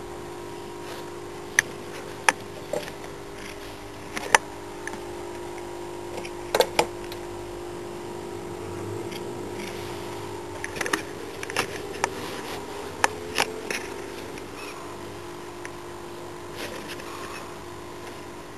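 Irregular sharp clicks and taps, about a dozen in the first three-quarters, from the fluffy ball on a wire spring of a cat scratcher toy as a cat's paws bat at it. A steady hum runs underneath.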